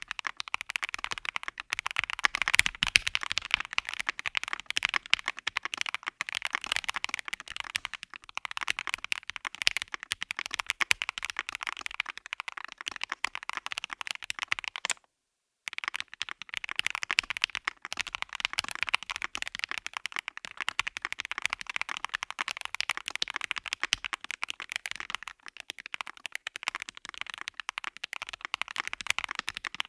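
Fast, continuous typing on a CKW80 mechanical keyboard in its top-mount build, with Marshmallow switches, GMK keycaps and an FR4 plate: a dense run of keystroke clacks. It stops dead for a moment about halfway, then carries on.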